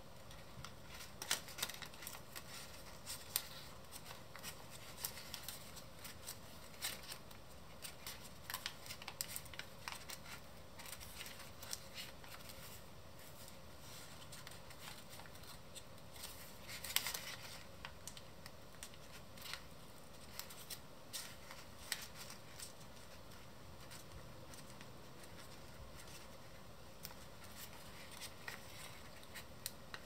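A sheet of origami paper being folded and creased by hand: scattered crisp ticks and crackles of the paper, with a longer rustle about seventeen seconds in.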